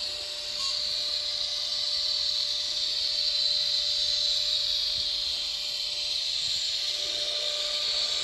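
N-scale model train running along the layout track: a steady high whirring hiss of the small motor and wheels on the rails, with a thin steady whine under it.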